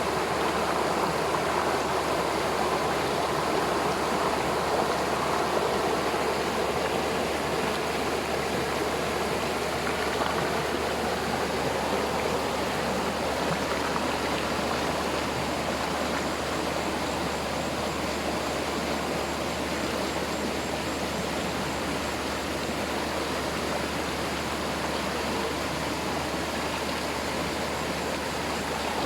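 Waterfall and its stream, a steady, even rush of falling and flowing water.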